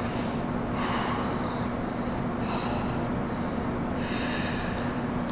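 A person breathing audibly into a close microphone during a standing stretch, four short hissy breaths about a second and a half apart, over a steady low hum.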